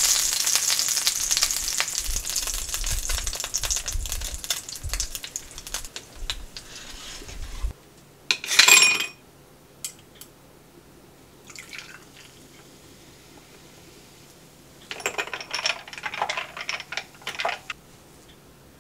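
Fish sizzling in a frying pan, the hiss fading and stopping about a third of the way in. Then a few short clinks and pouring sounds at a glass as a drink is made with ice, one near the middle and a cluster near the end.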